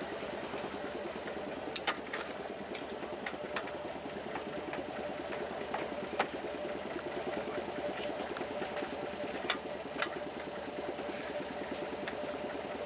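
An engine running steadily at idle, with a steady hum. About nine sharp metal clicks and knocks are scattered over it as a missile tube is handled and seated on a helicopter's launcher rail.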